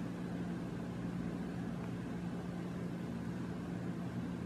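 Steady low hum with an even hiss behind it: constant background noise with no distinct events.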